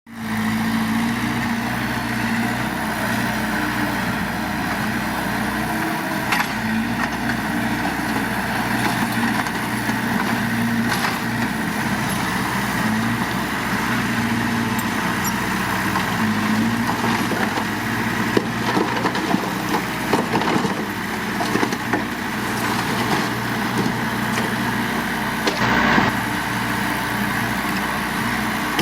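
Diesel engine of heavy earthmoving machinery running steadily, its note wavering slightly, with scattered clanks and knocks in the second half.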